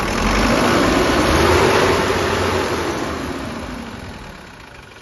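Tata 1109 BS3 truck's diesel engine revved with the throttle: the note rises over the first two seconds, then falls back toward idle. It revs smoothly, with no surging or stumbling, which the mechanic calls completely normal.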